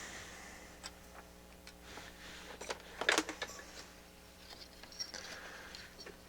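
Light clicks and clatter of parts and tools being handled on a workbench, with a denser cluster of sharp clicks about three seconds in, over a faint steady hum.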